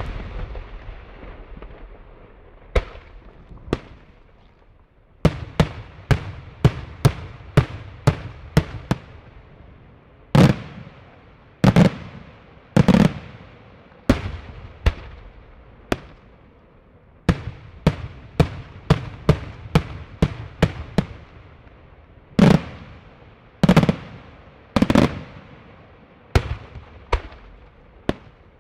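Daytime aerial fireworks: a long series of sharp bangs as shells burst overhead, each trailing off in an echo. After a short lull near the start, the reports come in quick runs of about two a second, with a few heavier, deeper booms among them.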